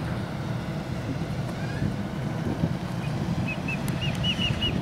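A steady low outdoor rumble, with a quick run of about six short high chirps from a bird in the last second and a half.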